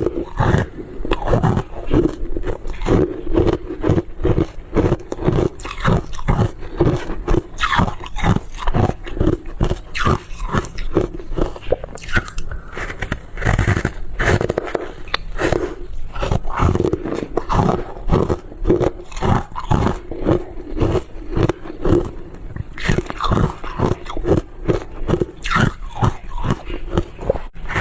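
Close-miked crunching and chewing of foam ice dusted with matcha powder: a steady run of sharp crunches, a few a second.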